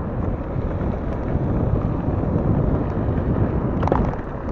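Wind buffeting the microphone and the tyres of a homebuilt e-bike rumbling over a gravel track at speed, with a brief clatter of knocks near the end.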